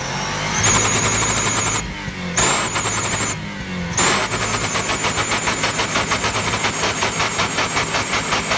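Car engine revved three times with a turbo whistler fitted in the exhaust tailpipe, giving a high whistle that rises with each rev; the throttle drops briefly twice, and the last long rev carries a rapid stuttering pulse.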